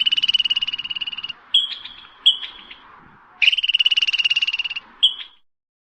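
Squirrel chattering alarm call: two rapid, high-pitched trills of about a second and a half each, with a few short chirps between them and one more near the end.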